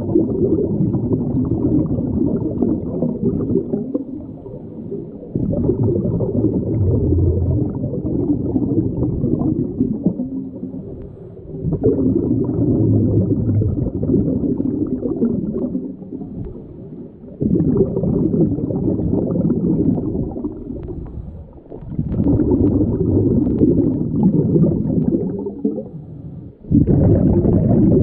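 Scuba regulator breathing heard underwater: muffled rushes of exhaled bubbles and airflow, about every five to six seconds, with short quieter dips between breaths.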